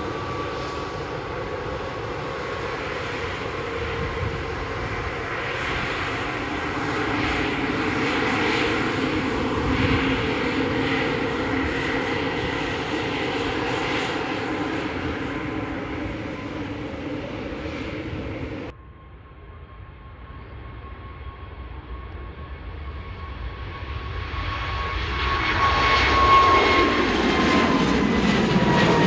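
Airbus A220-300 turbofan jet engines running at power on the runway, a steady rushing roar with a whine in it. It breaks off abruptly about two-thirds through, then swells again, loud, as the jet climbs out after takeoff, its whine falling in pitch as it passes.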